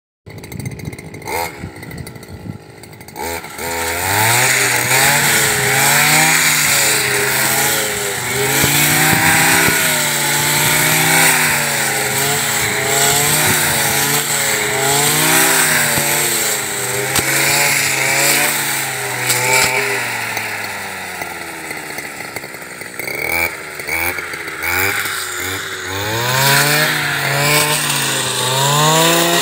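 Petrol brush cutter engine running, revving up and down again and again as the blade sweeps through dry grass and weeds. It runs lower for the first few seconds, then drops back toward idle for a few seconds about two-thirds of the way in before revving hard again.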